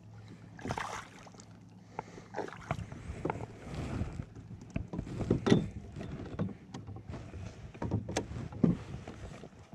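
Irregular knocks and taps on a plastic fishing kayak's hull and deck while a freshly caught largemouth bass is handled, with a sharper knock about halfway through and another near the end.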